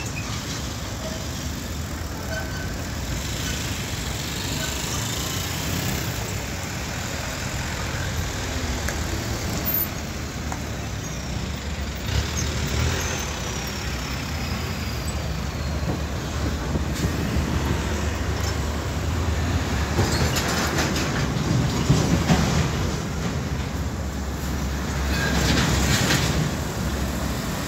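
Heavy diesel trucks passing slowly one after another, engines running with a low drone and trailers rattling, louder in the second half. The last is a MAN tractor unit pulling a loaded lowboy trailer.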